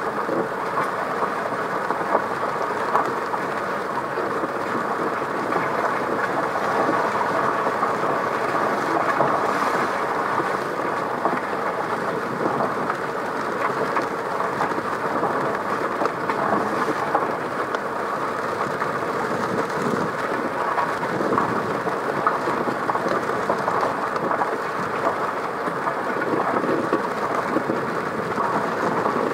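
A car driving in the rain: a steady rush of tyres on a wet road mixed with rain on the car, even in level throughout.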